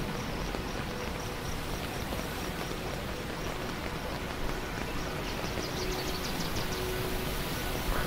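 Steady rushing noise of a white-noise app's nature soundscape, with faint held tones underneath. About five seconds in, a fast high chirping joins for a second or two.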